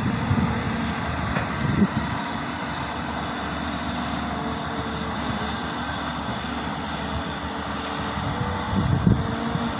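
Hyundai crawler excavator's diesel engine running steadily while it digs and lifts mud, with a slight swell near the end.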